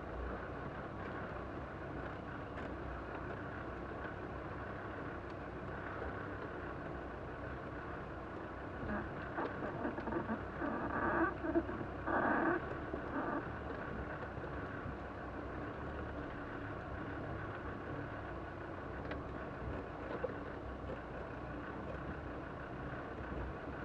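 Off-road vehicle heard from inside the cab as it drives slowly down a rough track: steady running and road noise, with a louder uneven stretch about halfway through.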